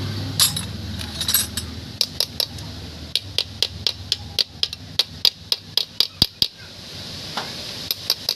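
A quick series of sharp metallic taps, about four a second for several seconds, with a few more near the end, like a tool striking metal parts. A low engine hum fades out in the first two seconds.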